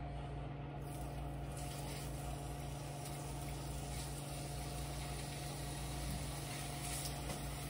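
Marinated chicken pieces sizzling in hot oil in a non-stick frying pan as they are added with tongs. The sizzle fills in about a second and a half in, over a steady low hum.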